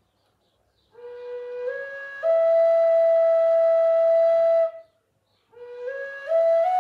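Wooden Native American flute playing a slow melody, with breathy tone: about a second in, a note starts and steps up to a long held note; after a short pause for breath, a second phrase climbs in steps and falls back near the end.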